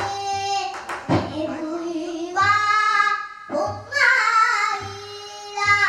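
A young girl singing pansori in long, held, wavering notes, accompanied by a few sharp strokes on a buk barrel drum played with a stick and the palm.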